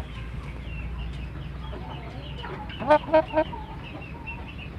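Chicken clucking: three loud, short calls in quick succession about three seconds in, over faint high chirping. The calls come from a chicken whose rattling, snoring breath ('ngorok') is now gone.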